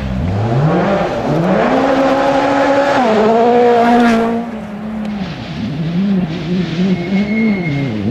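Rally car engine accelerating hard: the revs climb and hold high, and a gearchange comes about three seconds in. Then the driver lifts off at about four and a half seconds and blips the throttle up and down.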